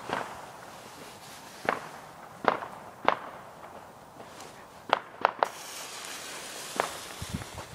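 Small consumer firework going off with a string of sharp, irregularly spaced cracks, about seven over several seconds, three of them in quick succession around the middle.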